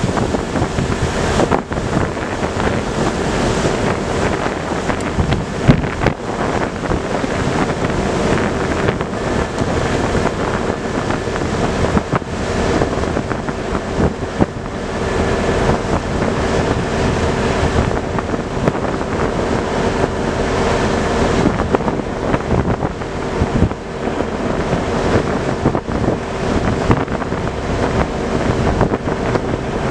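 River barge's diesel engine running under power, a steady hum, with its propeller wash churning the water as it pulls away from the quay. Wind buffets the microphone throughout.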